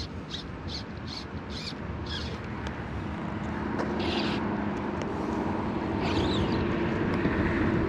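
Riverside ambience with a steady rustling noise and a bird chirping repeatedly for the first couple of seconds, then calling a few more times. From about three seconds in, a low steady engine hum from a distant vehicle joins in.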